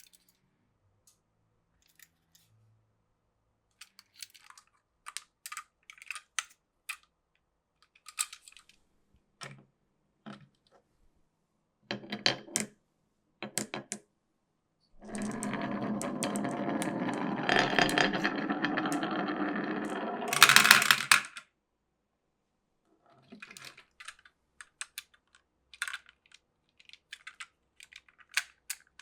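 Glass marbles running through a wooden and plastic marble run: scattered clicks and clacks, then a steady rolling rattle for about six seconds in the middle that ends in a burst of loud clacks, and more scattered clicks near the end.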